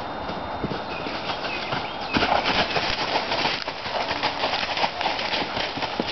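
Horse's hoofbeats on dry leaf-covered forest ground, with leaves crunching, getting louder about two seconds in as the horse passes close by.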